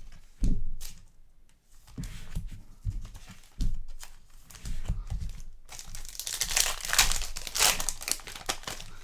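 Handling of trading cards and packaging, with light knocks on the table, then the crinkly foil wrapper of a card pack being torn open and crumpled for a couple of seconds near the end.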